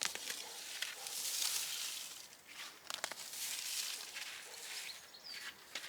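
Rustling and scratching of soil and dry potato foliage being handled during a hand harvest of potatoes, with a few sharp clicks and knocks.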